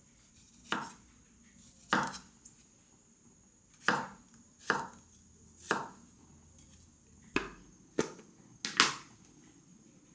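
Kitchen knife chopping on a cutting board: about eight slow, separate strokes, roughly one a second and unevenly spaced.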